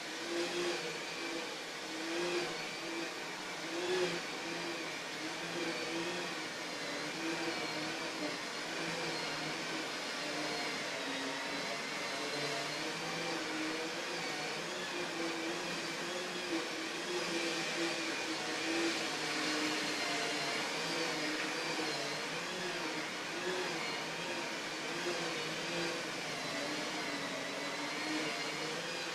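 Carpet-cleaning machine's electric motor running steadily, its pitch wavering slightly.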